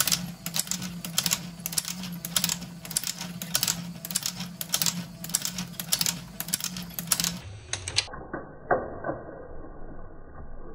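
3D printed power loom driven by a 12V geared motor running: a steady motor hum under a rapid, busy clatter of its plastic mechanism. About seven seconds in, the hum stops and the sound turns muffled, leaving a few dull knocks.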